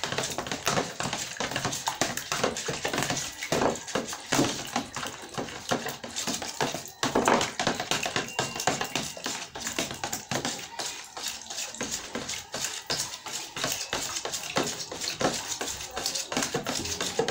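Knife blade cutting and scraping margarine in a plastic tub, with rapid irregular taps and clicks of the blade against the tub.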